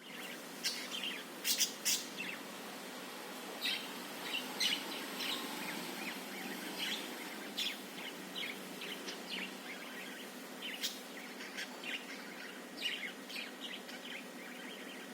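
Budgerigar (parakeet) chirping and warbling, a busy stream of short high notes and chatter, with louder sharp chirps every second or so.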